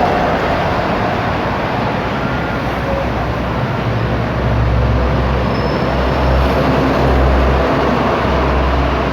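Steady background noise with a low engine rumble that swells from about four seconds in, as of a motor vehicle or boat passing close by.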